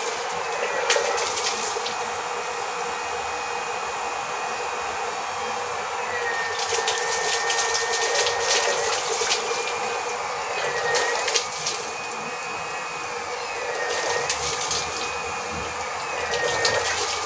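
STEC 12-volt 180-watt DC water pump running with a steady whir. A high whine over it dips and rises slowly as the pump's power draw goes up and down, with bursts of crackly noise now and then.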